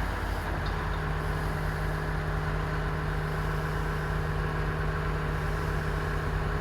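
An engine idling steadily, a constant hum that settles onto a steady pitch about half a second in.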